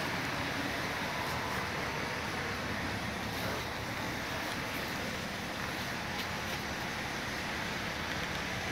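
Opel Antara's 3.2-litre Z32SE V6 petrol engine idling steadily.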